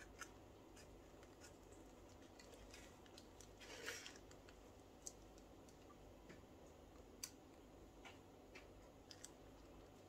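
Near silence: faint scattered ticks and one brief rustle about four seconds in, from a wooden stick working epoxy resin along the edge of a plastic coaster mould, with gloved hands.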